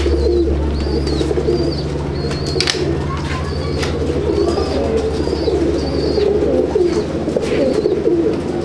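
Many Andhra pigeons cooing together in a loft, their overlapping coos going on without a break over a steady low hum. A short high thin chirp repeats about every half second or so, with a few sharp clicks.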